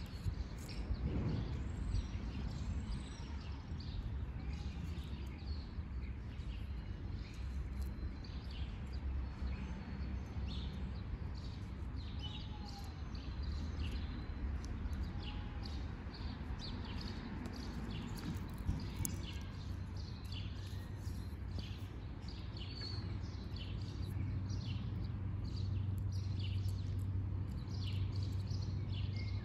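Outdoor ambience: many short, high bird chirps over a steady low rumble.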